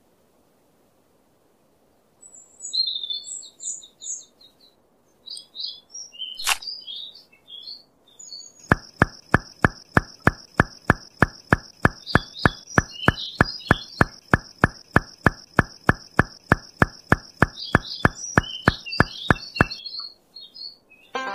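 Birds chirping, with one sharp click partway through. Then a regular beat about three times a second starts under a steady high tone, with chirps continuing over it, and stops shortly before the end.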